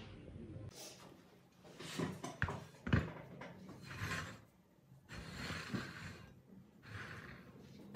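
Handling noise of a bare aluminium engine crankcase and cylinder block being moved and turned on a workbench: a few light knocks and clicks, the sharpest about three seconds in, between bouts of gloved hands rustling and rubbing against the metal.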